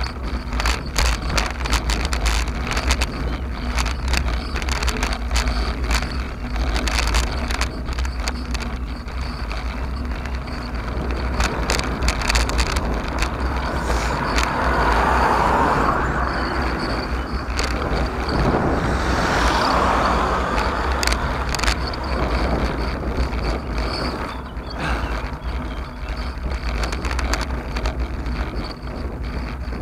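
Wind buffeting the microphone of a handlebar-mounted camera on a moving road bike, with frequent clicks and rattles from the road surface. About halfway through, a car passes, and a second vehicle passes a few seconds later.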